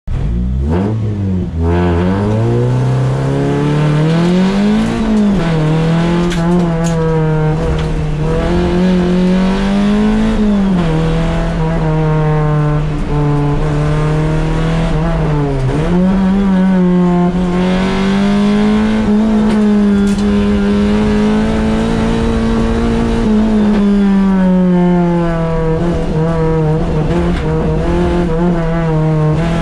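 A Honda D16A1 four-cylinder engine in a third-generation Civic, heard from inside the cabin while driven flat out. The revs climb from low at the start and then repeatedly rise and fall through the gears, with a sharp dip about 15 seconds in. They hold high for several seconds after that and ease off near the end.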